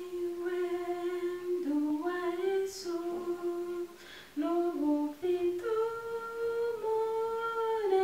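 A woman singing a Kinyarwanda hymn unaccompanied, in slow, long-held notes that step up and down in pitch.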